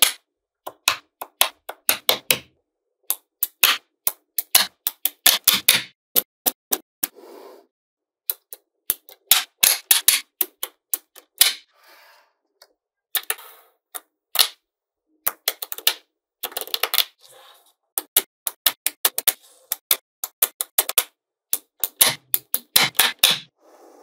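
Small magnetic balls clicking and snapping together as rows and grids of them are pressed into place: quick clusters of sharp clicks with short pauses, and a few softer rattling patches in between.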